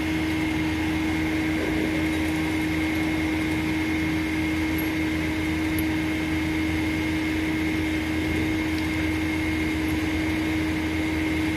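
A heavy truck's engine running at idle, giving a steady hum with a constant high-pitched whine over it.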